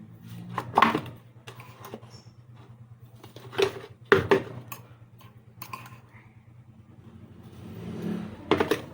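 Scattered knocks and clinks of kitchen containers and utensils being handled, about half a dozen sharp hits, over a steady low hum.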